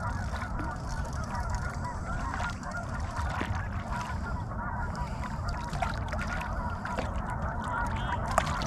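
A large flock of waterfowl calling continuously on the water, many short overlapping calls blending into a steady chorus.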